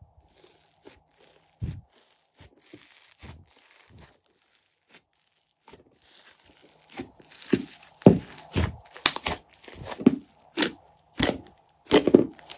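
Hands squeezing and kneading slime packed with small foam beads, giving sharp crunching, crackling pops. The pops are sparse at first, then come thick and loud from about halfway through.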